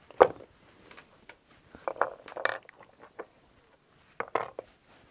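One mallet strike driving a 5 mm diamond stitching chisel through leather, then light metallic clinks and taps as the steel chisels are handled and set down. The clinks come in a cluster about two seconds in and again after four seconds.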